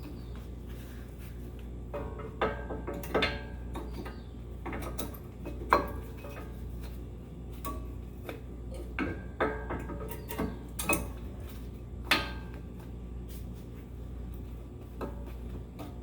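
Irregular metallic clinks and knocks of hand tools and brake parts being handled during a front brake pad change, some with a short ringing, over a steady low hum.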